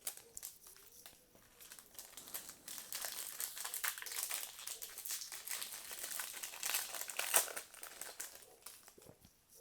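Foil wrapper of a Topps Chrome MetaZoo trading-card pack being torn open and crinkled by hand, a dense crackling that builds after a couple of seconds and dies away near the end.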